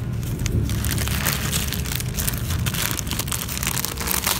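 Clear plastic air-layering wrap packed with cocopeat crinkling in a steady run of small crackles as hands squeeze and shape it, over a low steady rumble.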